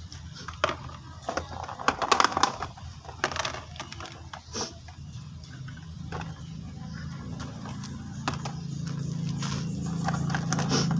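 A knife cutting red chilies on a clay cobek (mortar), making a run of irregular sharp clicks and knocks, thickest in the first half. A low steady hum grows louder through the second half.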